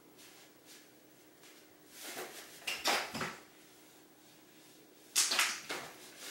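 Fabric pop-up cat tunnel rustling in two short bursts as a cat paws at it and pushes its head against the rim, the first about two seconds in and the second just past five seconds.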